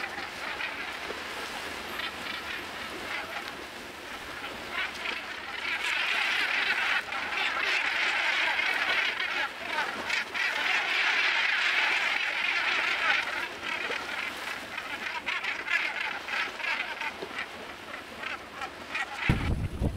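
A large flock of northern gannets calling over the sea, many calls overlapping into a continuous chorus that swells to its loudest in the middle stretch. Wind rumble hits the microphone just before the end.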